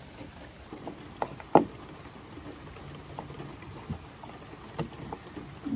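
Scattered light clicks and taps of a mudflap mounting bolt being put in and threaded, with one sharper knock about a second and a half in, over a faint steady hiss.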